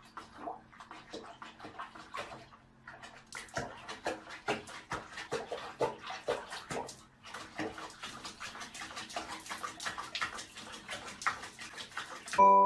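Soapy water splashing and sloshing in a sink as a cat is bathed, in many irregular small splashes. A chiming mallet-percussion tune starts just before the end.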